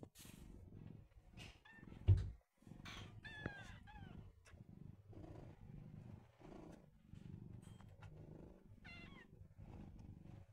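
Mother cat purring steadily while nursing newborn kittens, with short thin high-pitched kitten squeaks about three seconds in and again near the end. A single low thump about two seconds in is the loudest sound.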